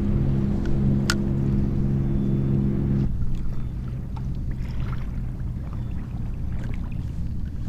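Water slapping against a kayak hull on choppy sea, with a steady low rush of wind and water. A steady low hum runs for about the first three seconds and then stops abruptly. There is a sharp click about a second in and a few faint small clicks after that.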